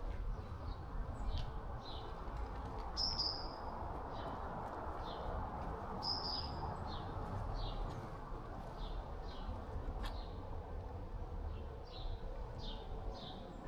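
Small birds chirping, short high chirps repeating about twice a second, with two longer, higher whistled notes about three and six seconds in, over a steady low background hum.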